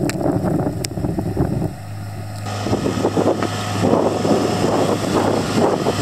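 Strong gusty wind buffeting the microphone, with the low steady drone of a small utility vehicle's engine coming in about two seconds in as it pushes snow with its plow blade.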